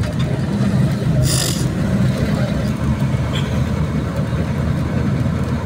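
Steady engine and road rumble of a vehicle moving slowly through traffic, heard on board, with a short hiss about a second in.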